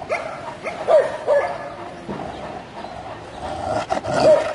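Dogs giving short, high whining yips while playing tug-of-war over a coconut, three in quick succession at the start and one more near the end. There is a sharp click just before the last yip.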